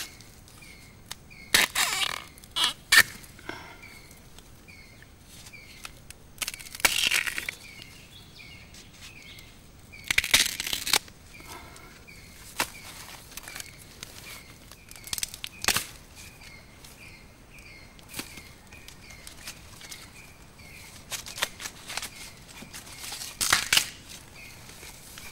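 Bamboo stems rustling and cracking as they are grabbed and cut with a blade, in several loud, short bursts. Under them, a small steady chirp repeats about twice a second.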